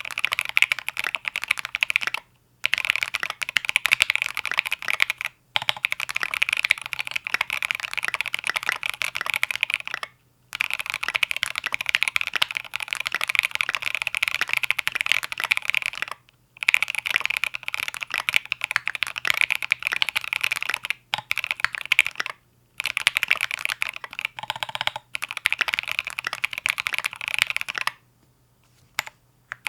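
Fast typing on an E7-V2 prototype mechanical keyboard with Obsidian switches and SA-profile keycaps, set on a deskmat. The keystrokes come in dense runs of several seconds, separated by about five brief pauses. The typing stops a couple of seconds before the end, leaving a couple of single clicks.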